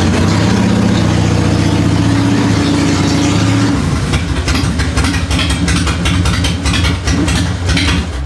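Harley-Davidson Fat Boy's air-cooled V-twin engine idling. It holds a steady low tone for the first few seconds, then runs with a more uneven beat from about four seconds in, and cuts off at the end.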